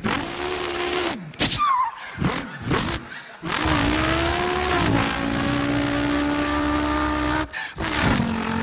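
A man imitating a V8 car engine with his voice: revving whines that rise and fall, broken by short gaps like gear changes, then a long steady note near the end.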